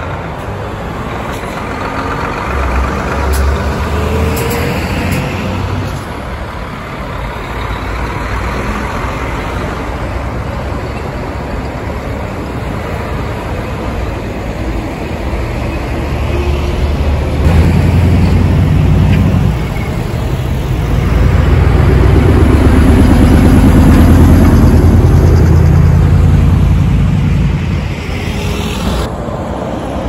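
Heavy diesel trucks and semi-trailer tractors passing along a road, engines running low with tyre noise; the traffic grows louder in the second half, with the loudest passes about two-thirds of the way through.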